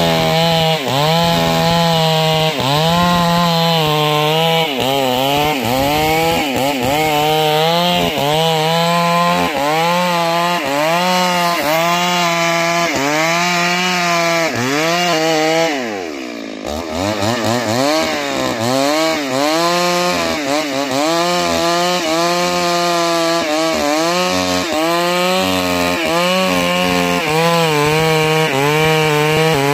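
Two-stroke chainsaw cutting into a large tree trunk at full throttle, its engine pitch sagging and recovering about once a second as the bar is rocked through the wood. About halfway through the revs drop briefly and climb back, and they fall away again at the very end.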